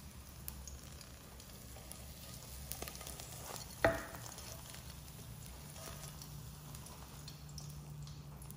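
Faint sizzle of a hot omelette as it is slid from a non-stick frying pan onto a ceramic plate, with a few light ticks and one sharp, ringing clink against the plate about four seconds in.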